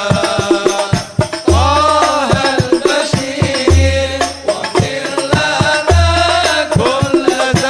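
Background music: a gliding melodic line over quick percussion, with a deep bass note about every two seconds.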